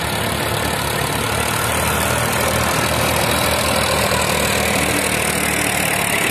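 Tractor diesel engine running steadily and loudly close by, pulling a sand leveller.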